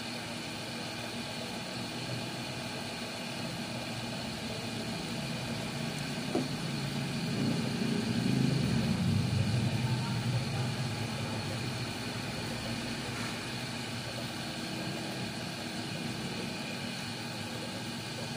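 Steady motor hum, with a louder low rumble swelling up about seven seconds in and dying away by about eleven seconds, and a single light click about six seconds in.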